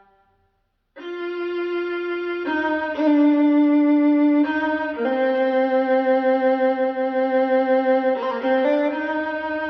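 Music played back through a Technics SC-C70 MK2 all-in-one hi-fi system: one track fades out, and after a second of silence the next one begins with a melody of long held bowed-string notes that changes note every second or two.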